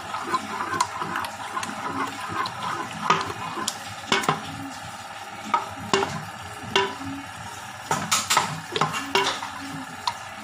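A metal spoon stirring and mashing thick boiled spinach in a metal pot, with irregular clinks and scrapes of the spoon against the pot, clustered about three to four seconds in and again near the end. The flour mixed into the greens is being worked in to thicken them.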